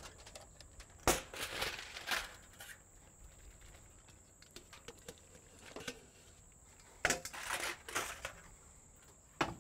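Cooked noodles being tipped into a pot of cheese sauce: a knock about a second in, then short bursts of scraping and rustling, and more around seven to eight seconds in.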